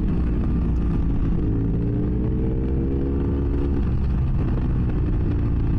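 2006 BMW F800S parallel-twin engine through an open GPR Furore exhaust with its dB-killer removed, heard from inside the rider's helmet. The revs dip, then climb steadily for a couple of seconds before dropping again about two-thirds of the way through.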